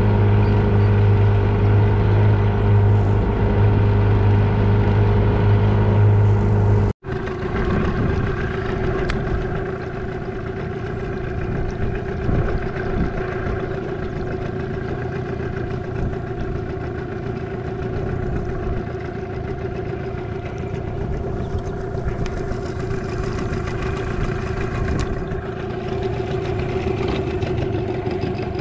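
15 hp Yamaha outboard motor pushing a small aluminium boat, running steadily. About seven seconds in there is a sudden break, after which the motor runs on more quietly.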